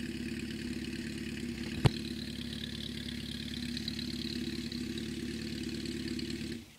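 1974 Honda CB750 air-cooled inline-four idling steadily, with one sharp bang about two seconds in; the engine cuts off suddenly near the end as it is switched off.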